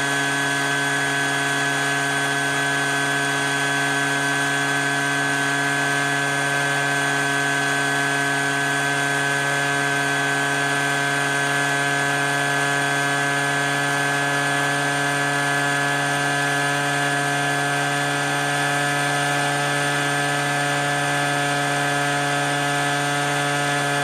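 Four shop vacs and a leaf blower running together on a homemade dust-collector drum: a steady, loud whine of several motors with rushing air, as debris is sucked through a 4-inch corrugated hose.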